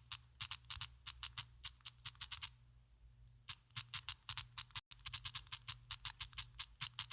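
Keyboard keys clicking in quick, irregular runs as a message is typed, with a pause of about a second near the middle.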